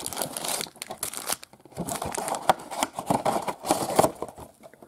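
Foil wrappers of Panini Mosaic baseball card fat packs crinkling and rustling unevenly as the packs are handled and slid out of the cardboard hobby box.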